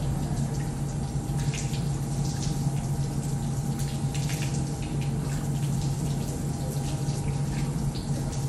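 Water running from a wall tap at a mosque ablution trough and splashing onto the steel grating as a man washes for wudu, with irregular small splashes over a steady low hum.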